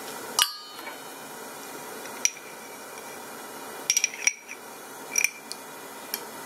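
Sharp taps and clinks against a stainless-steel mixing bowl while half an egg is added: about half a dozen strikes, the loudest about half a second in and a quick cluster near the middle, several with a short metallic ring.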